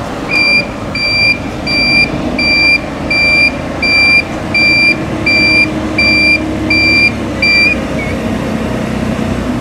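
Electronic warning beeper sounding eleven evenly spaced high beeps, about one every three-quarters of a second, then stopping. A vehicle engine runs low underneath.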